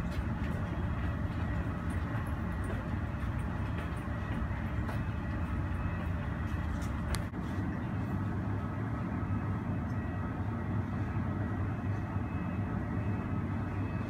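Steady low rumble of airport noise heard from inside the terminal through the window glass, with a faint steady high tone over it.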